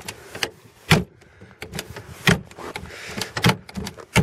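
Irregular clicks and knocks from a VAZ 2101 door's chrome outer handle, push-button latch and lock as the door is worked by hand. The two loudest knocks come about a second in and just past two seconds. The door sags on worn hinges, and the clicking is its latch being tried against the catch.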